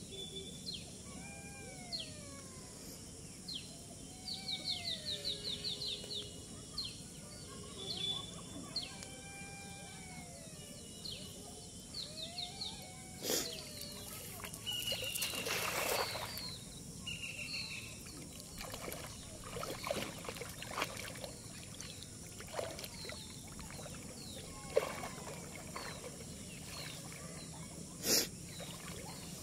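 Birds calling: repeated rising-and-falling calls and a fast ticking trill in the first half. About halfway through comes a splashy rush as a weighted cast net hits the water, followed by scattered small splashes and a couple of sharp knocks as the net is worked by hand in shallow water.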